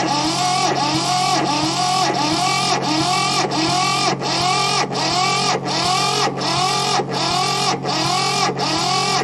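Electric starter cranking a Mitsubishi tractor's little two-cylinder diesel engine, in an even rhythm of about one and a half compression strokes a second, each with a rising whine from the starter. The engine turns over without catching.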